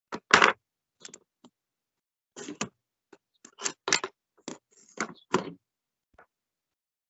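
About a dozen short, irregular clicks, knocks and scrapes with silence between them; the loudest comes about half a second in.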